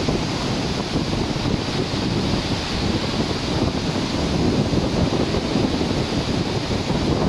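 Wind buffeting the phone's microphone over a rough sea, with the churning of a ship's wake and breaking waves below; a steady rush that swells and dips without pause.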